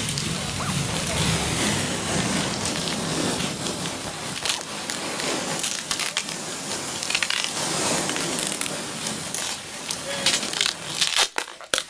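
Noise-music texture from a field-recording set: dense crackling and crunching with many sharp clicks. It drops out almost completely for a moment near the end.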